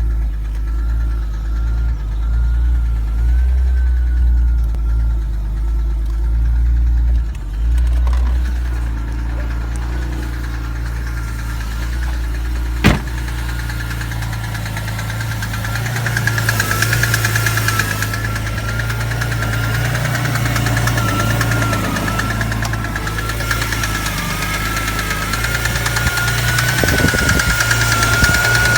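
BMW E46 M3's S54 3.2-litre inline-six running with a fast, rhythmic knock from the bottom end: a rod knock, the sign of a worn connecting-rod bearing. A wavering high whine runs over the engine note. The knocking grows more prominent in the second half, and a single sharp click comes about midway.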